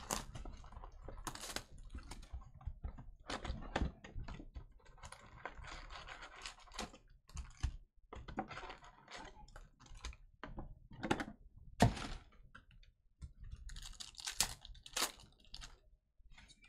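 Foil-wrapped packs being pulled from a cardboard Panini Mosaic Fast Break basketball card box and handled, giving irregular crinkles, taps and clicks, with one sharper knock about twelve seconds in.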